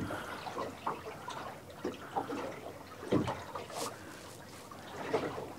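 Sea water lapping against the hull of a small boat at anchor, in small irregular splashes.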